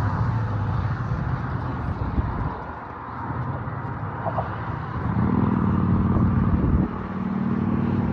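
Outdoor traffic: a steady rush of vehicle noise, with a vehicle's low engine hum growing louder about five seconds in and again near the end.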